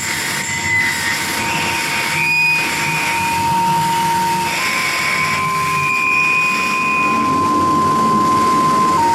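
Live harsh noise music: a dense, grinding wall of electronic noise with a steady high tone held through it, stepping up slightly about four and a half seconds in and dropping back near the end, while other high whistling tones come and go.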